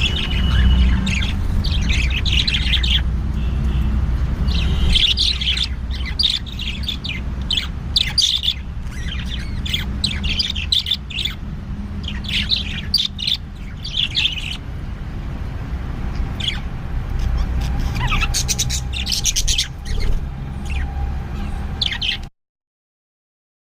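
Budgerigars chirping in quick clusters of short high calls over a steady low hum. The sound cuts off suddenly near the end.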